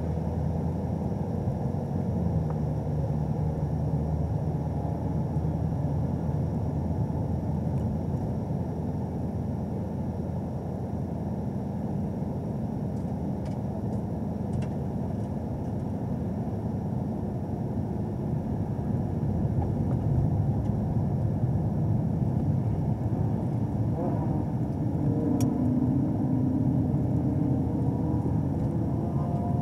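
2017 Camaro ZL1's supercharged 6.2-litre LT4 V8 running steadily at low revs, around 1,200 rpm, while the car rolls slowly at low speed, heard inside the cabin with tyre and road noise.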